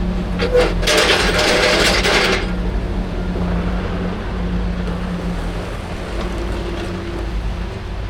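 An engine running steadily, with a burst of loud hissing noise about a second in that lasts about a second and a half.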